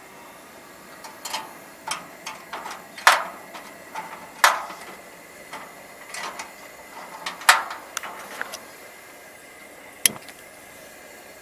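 Coleman 424 dual fuel camping stove burning petrol with a steady hiss, while a string of irregular sharp clicks and knocks sounds over it, the loudest about three, four and a half and seven and a half seconds in, with a last one near the end.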